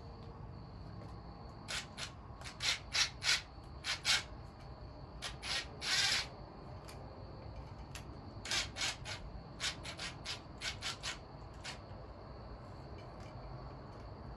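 Hand ratchet worked in short, uneven strokes, giving quick rasping bursts of clicks in three clusters with pauses between, as bolts on the front fender are tightened.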